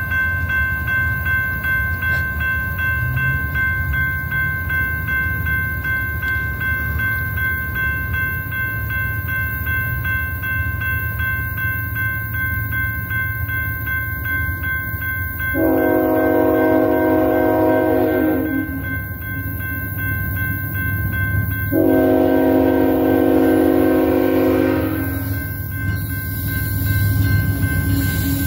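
Diesel locomotive horn sounding two long blasts about six seconds apart, with a third beginning at the very end, the grade-crossing warning of an approaching train. A low rumble from the train runs underneath, and a steady high ringing from the crossing signal fills the first half.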